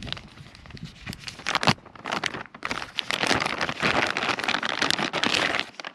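Clear plastic packaging bag crinkling and rustling as it is handled and opened: scattered crackles at first, then a dense rustle from about two seconds in that stops just before the end.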